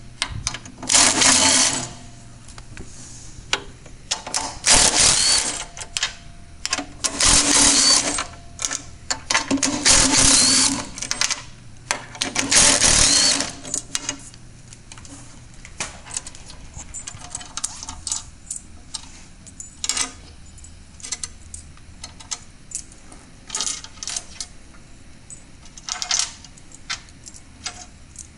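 Cordless driver with a 9/16-inch socket running out the slide-tray bolts in five bursts of a second or two each through the first half. After that come scattered light metallic clicks and clinks as the loose bolts are handled.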